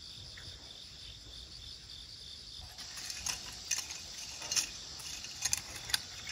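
Steady chirring of field insects. From about three seconds in, a handful of short scrapes and knocks join it, from long-handled hoes working the soil.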